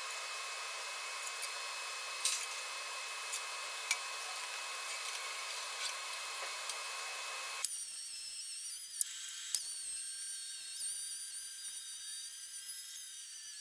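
Angle grinder rounding off the corner of a stainless steel flat bar, starting about eight seconds in: a high whine that wavers in pitch as the disc bites, with a few sharp clicks. Before that, a steady hiss with a faint steady tone.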